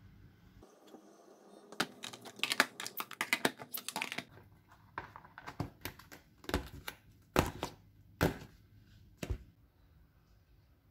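Plastic lids being fitted and pressed down onto plastic food-storage containers: a flurry of clicking and clattering, then about six separate sharp snaps as the lids click shut.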